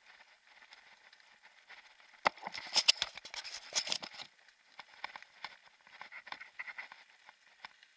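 Mountain bike rolling over a gravel track: a light crunching and ticking of tyres and bike, with a dense burst of rattling clatter about two seconds in lasting some two seconds as it hits rougher ground, then scattered clicks.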